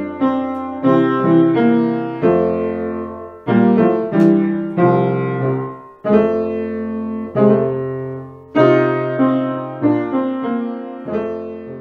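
Background piano music, with notes and chords struck at a slow, even pace and each left to fade.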